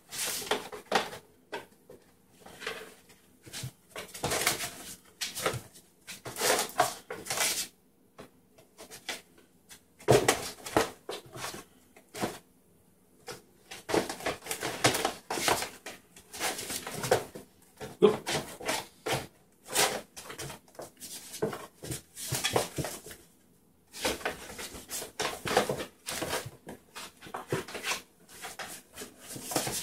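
Empty cardboard 12-pack soda box being batted, pounced on and skidded across a tile floor by kittens: irregular bursts of scraping, rustling and knocking, with a few short quiet pauses.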